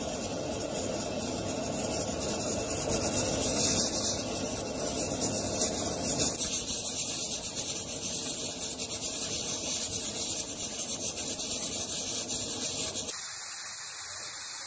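Aluminium pressure cooker on a gas burner, hissing steadily as steam vents from its weighted pressure valve, a sign it is up to pressure. A lower rumble under the hiss drops out about thirteen seconds in, leaving the high hiss.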